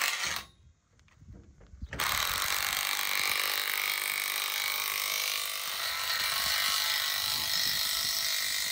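Makita cordless drill running as it drives fasteners into a galvanized-pipe clothesline fitting: a short burst, then after a pause of about a second and a half a steady run of about six and a half seconds that stops abruptly.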